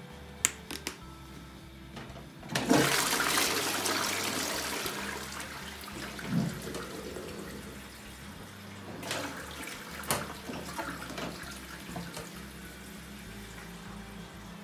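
Toilet flushing: a couple of sharp clicks from the flush mechanism, then, about two and a half seconds in, a loud rush of water that slowly fades over several seconds, with smaller gurgles around nine to ten seconds in.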